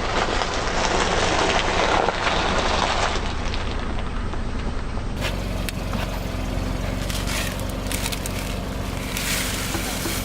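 Car tyre rolling over and crushing brittle objects: a dense crunching for the first few seconds, then, after a cut, fine crackling and snapping, over the steady low hum of the car's engine.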